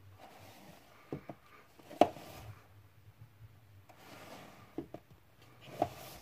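Blu-ray cases being slid out of and pushed back into a tightly packed row on a wooden shelf: soft scraping with a few sharp plastic clicks and taps, the loudest about two seconds in.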